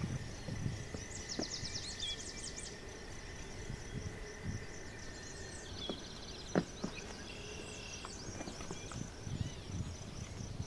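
Rubber wellington boots being pulled on, with soft rustles and a few light knocks, while small birds chirp in quick high trills.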